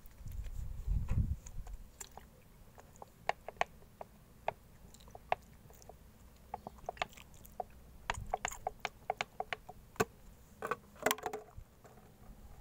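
Scattered small clicks and crackles, irregular and sharp, densest about eleven seconds in, from hands handling plastic seedling pots and seedlings. A low rumble in the first second or so.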